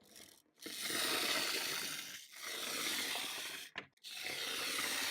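Small plastic pull-back toy front loader's wheels and spring motor running as it is pulled back and released. This comes as three runs of about a second and a half each, with a short click between the second and third.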